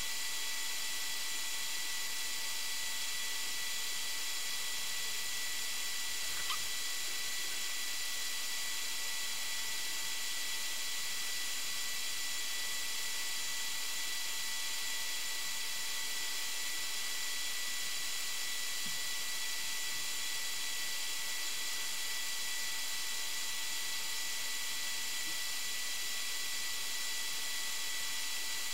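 Steady electronic hiss from the recording device, with several faint unchanging whine tones in it and one faint tick about six and a half seconds in.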